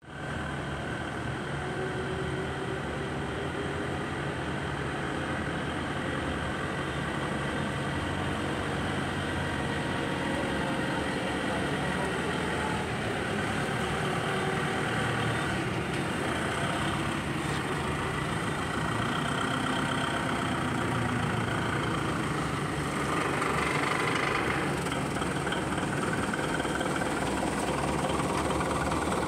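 XGMA forklift's engine running steadily as the forklift drives, growing a little louder as it comes close.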